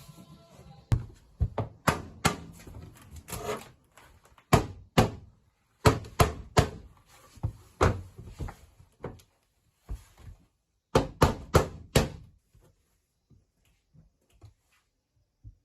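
Irregular sharp knocks and thunks of wood being handled and struck, some in quick pairs. They thin out to a few faint taps over the last few seconds.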